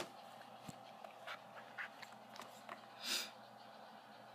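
Quiet room tone with a sharp tap at the start, a fingertip tapping the phone's touchscreen, then a few faint ticks and a short breathy hiss about three seconds in.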